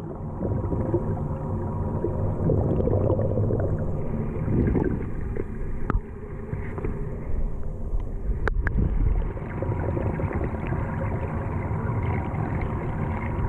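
Muffled underwater sound in a swimming pool, picked up by a camera in an underwater housing: a low, steady rumbling wash with a faint hum, and two sharp clicks, one about six seconds in and one about two and a half seconds later.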